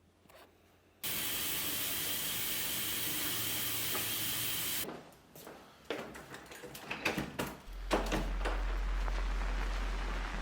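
A steady hiss that starts abruptly about a second in, runs for about four seconds and cuts off sharply. It is followed by a few clicks and knocks and then a low steady hum.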